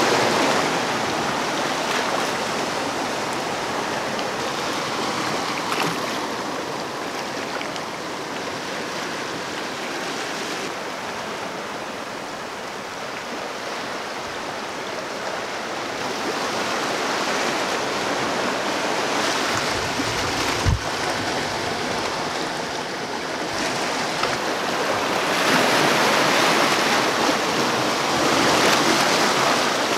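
Sea surf washing over and draining off a rocky shore: a steady wash of water that swells and eases, rising to its loudest near the end.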